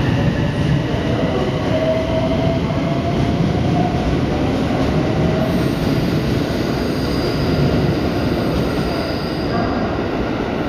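Limited express electric train pulling out of the station, its cars rolling past with a steady rumble of wheels on rail and thin whining tones over it. The sound eases a little near the end as the last car goes by.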